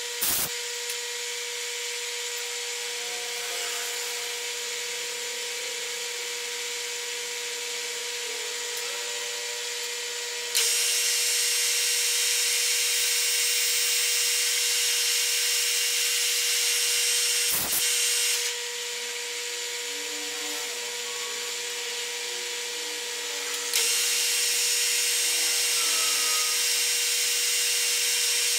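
Metal lathe running with a steady whine while a small drill bores a deep hole into 316 stainless steel. The cutting hiss grows louder about a third of the way in, drops back after several seconds, then rises again near the end. There are two sharp clicks, one at the start and one just before the drop.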